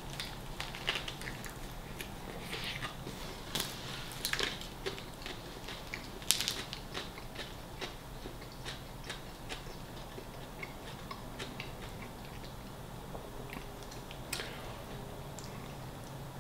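A man biting into a turkey and bacon sub roll with gravy and chewing it: a run of mouth clicks and smacks, thick in the first half and thinning out later, the loudest about six seconds in.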